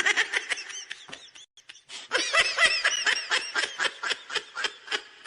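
High-pitched laughing meme sound effect: a rapid string of short giggling bursts in two runs, with a short break about a second and a half in.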